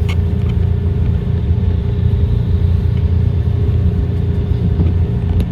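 SEPTA trolley running along the track, with a steady low rumble and a steady hum. There are a couple of short clicks, one just after the start and one near the end.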